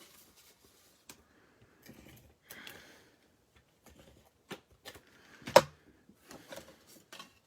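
Adhesive tape runner drawn across cardstock in short strokes, with light taps and clicks of paper being handled and pressed in place. There is one sharper knock about five and a half seconds in.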